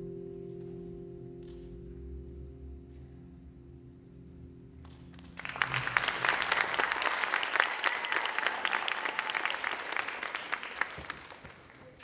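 The closing sustained chord of the solo's music fades out. About five and a half seconds in, an audience bursts into applause, which thins and dies away near the end.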